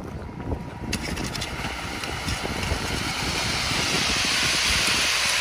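Ready-mix concrete mixer truck running, with wet concrete sliding down its chute; a hiss builds from about a second in and is loudest near the end.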